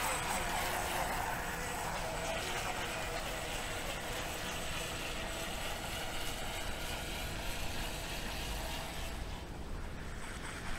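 Motors of radio-controlled model racing boats whining as they run across the water, the whine slowly dropping in pitch and fading about nine seconds in.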